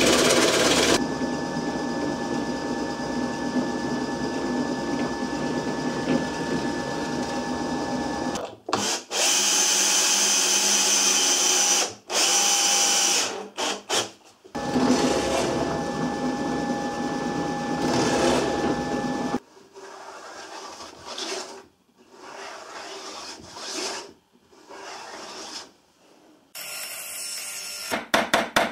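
Workshop power tools in cut-together clips: a drill press boring plywood with a Forstner bit, its motor running steadily, then a cordless drill driving screws into plywood in short stop-start runs.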